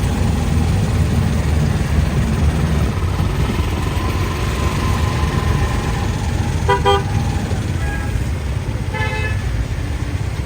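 Busy street traffic in heavy rain as a steady low rumble, with vehicle horns honking twice in short stuttering toots, about two-thirds of the way in and again near the end.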